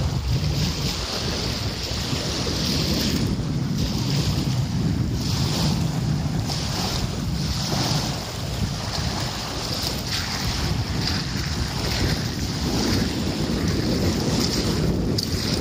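Wind rumbling on the microphone over small waves washing and breaking onto a shingle shore, steady throughout with the wash swelling and easing.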